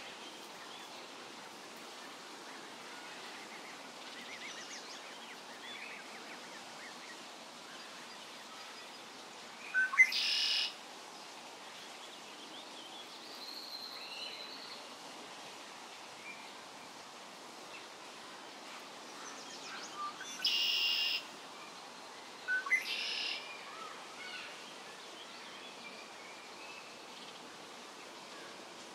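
Birds calling over a steady background hiss: three louder, brief calls, about ten seconds in, around twenty seconds and again shortly after, with faint chirps in between.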